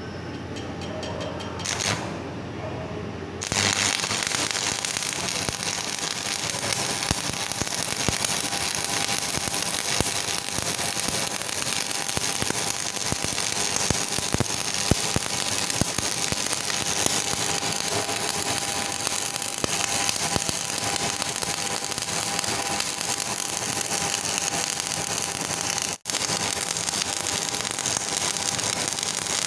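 Shielded metal arc (stick) welding with an E6013 rod on an AC welding transformer: the arc strikes about three and a half seconds in and then burns with a steady crackling hiss. It breaks off for an instant near the end.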